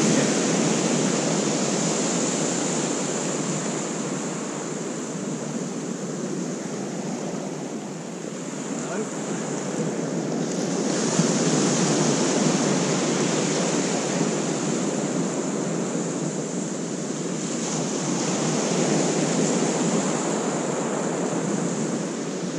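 Surf breaking on a shingle beach, a continuous wash that swells and fades in slow surges as each wave comes in.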